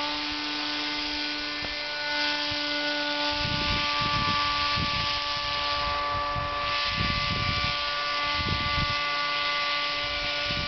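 Paramotor engine and propeller flying overhead, giving a steady even buzz. From about three seconds in, wind buffets the microphone in gusts.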